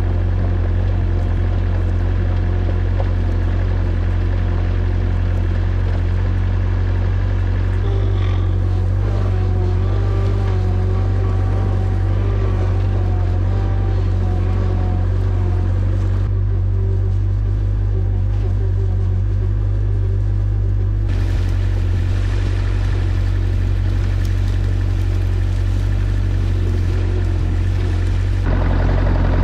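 Bulldozer engine running steadily with a deep, constant drone.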